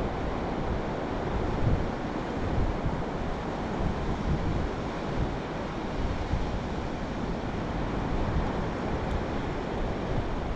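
Wind buffeting the microphone over the steady wash of surf on a sandy beach, with uneven gusts and no distinct events.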